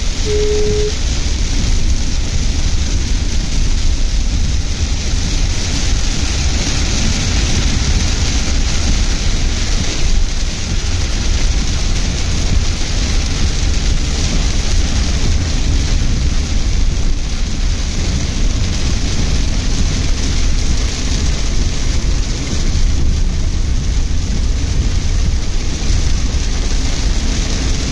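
Heavy rain pelting the roof and windscreen of a moving Tata Nexon, heard from inside the car, over a steady deep rumble of the car on the wet road.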